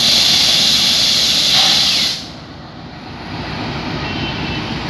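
Loud hiss of compressed air from a departing passenger train's air brakes, which cuts off abruptly about two seconds in. It gives way to the low, steady rumble of the coaches rolling slowly out along the platform.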